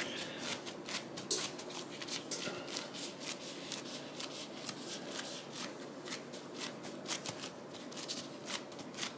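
A dense, irregular run of small clicks and rustles, like things being handled close to the microphone.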